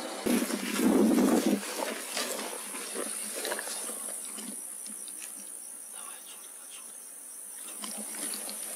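Crickets and other insects chirring steadily in a high band at night. About a second in there is a short, loud burst of lower noise.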